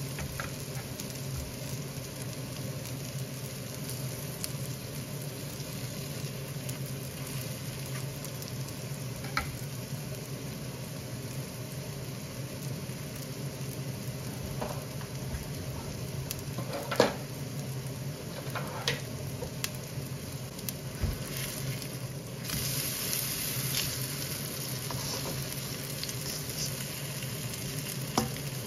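Zucchini pancakes sizzling steadily in shallow oil in a nonstick pan, over a low steady hum. A few sharp clicks of a utensil come through, the loudest a little over halfway through.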